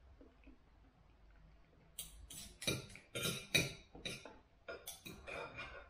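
Knife and fork clinking and scraping on a dinner plate while cutting up sausage and potatoes: a quick, irregular run of clicks starting about two seconds in.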